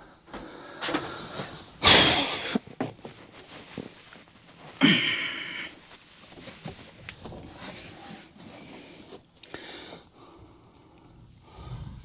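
Handling noises from a plastic pail of duct mastic being set down and handled, with two loud, short scraping knocks about two and five seconds in and quieter rustling and knocks between.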